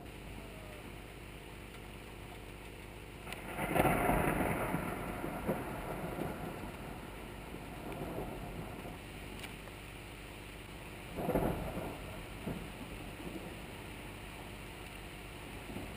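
Thunder: a sudden clap about three seconds in that rolls into a rumble fading over several seconds, then a second, shorter clap about eleven seconds in, over a steady hiss.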